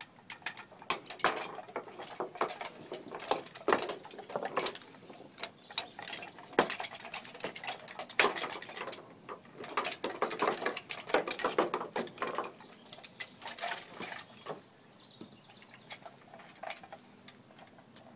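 Wooden marionette dog's jointed legs tapping and clattering irregularly on wooden deck boards, a string of small knocks and clicks with busier clusters partway through.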